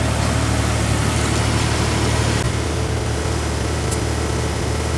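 Vehicle engine idling with a steady low hum that shifts slightly about halfway through.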